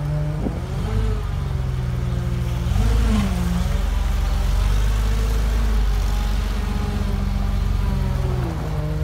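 2005 Hyster 11,000 lb propane forklift's engine running as it drives and turns, revving up about a second in and again around three seconds, holding there, then falling back to a lower idle near the end.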